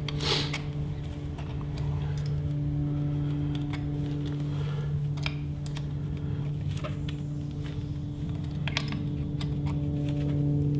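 Scattered light metallic clicks and taps of an Allen key tightening a drain plug on an outboard motor's fuel-system housing, over a steady low hum.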